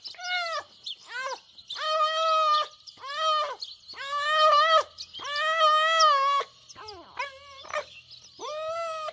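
A fox giving a run of high, whining yelps, about a dozen in quick succession, each rising and then falling in pitch.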